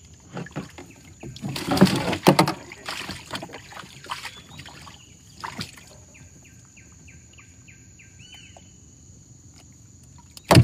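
Knocks and clatter on a metal boat as a patin catfish and the landing net are handled, loudest for about a second near the start, then scattered knocks. Later a bird calls a quick run of about eight short falling notes, over a faint steady high-pitched whine; a loud thump comes at the very end.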